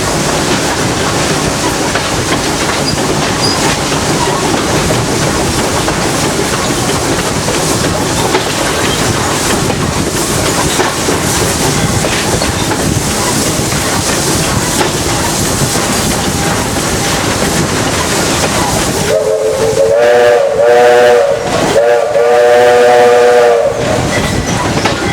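Steam locomotive Flagg Coal #75 and its coaches running along the track with steady rolling noise. Near the end, the locomotive's chime whistle blows loudly in a few blasts, one long, a short break, then another long one.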